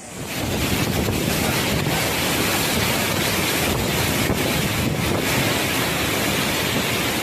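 Loud, steady rush of typhoon wind and churning water, with wind buffeting the microphone; it cuts in abruptly at the start.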